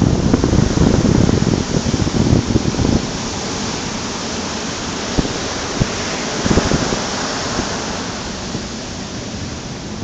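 Ocean surf washing up a sandy beach: a steady hiss of breaking waves and foam that swells about six seconds in and eases toward the end. A low buffeting rumble sits under it for the first three seconds.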